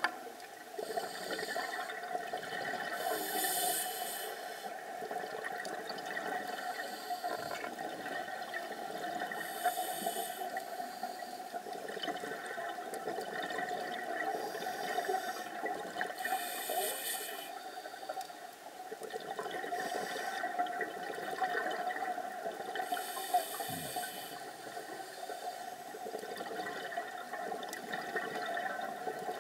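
Scuba diver breathing through a regulator underwater, heard through a camera housing: loud rushes of exhaled bubbles come about every six to seven seconds over a steady underwater hiss.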